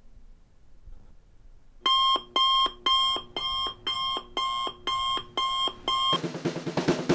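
Digital alarm clock beeping, about two buzzy beeps a second, starting about two seconds in. The beeping cuts off suddenly a little after six seconds in, as a hand comes down on the clock to silence it.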